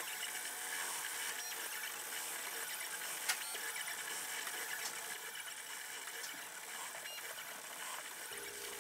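MakerBot desktop 3D printer running a print: the stepper motors whir in shifting pitches as the print head and build plate move, over a steady fan hiss, with a sharp click about three seconds in.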